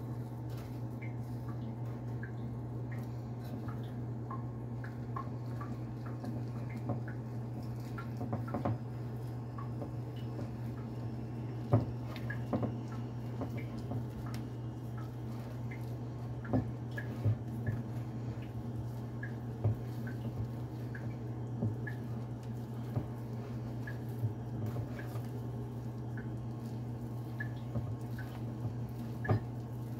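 Soft squishing of dough being mixed and squeezed by hand in a glass bowl, with scattered small clicks and occasional knocks against the glass, over a steady low hum.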